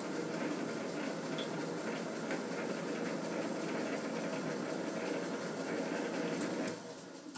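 Metal lathe running as a carbide threading insert chases an M50 x 1.5 thread in steel: a steady mechanical running noise. Near the end there are a couple of sharp clicks, and the noise falls away.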